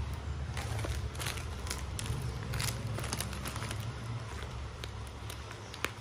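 Packaging being handled: plastic mailer bags and small cardboard boxes rustling and crinkling in short, scattered bursts over a steady low hum.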